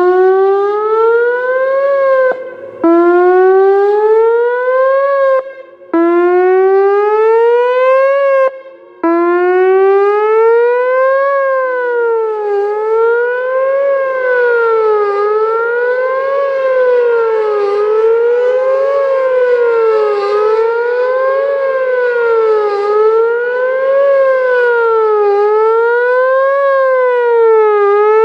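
Whelen WPS-4004 electronic outdoor warning siren sounding loudly. It gives three rising tones, each cut off abruptly, then a fast wail that rises and falls about every three seconds.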